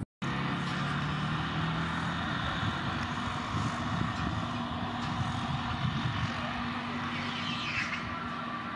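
Airbus A321neo's turbofan engines running at low taxi power as the jet rolls slowly along the runway, a steady, even rumble with a low hum, cutting in after a split-second silence at the start.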